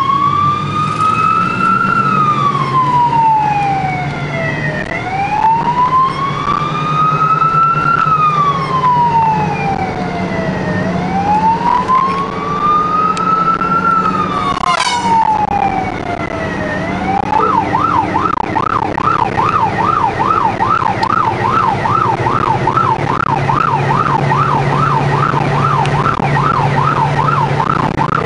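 Police car siren heard from inside the car while it drives fast: a slow rising-and-falling wail that switches a little past halfway to a fast yelp of two to three cycles a second, over the car's engine and road noise. A brief whoosh comes about fifteen seconds in.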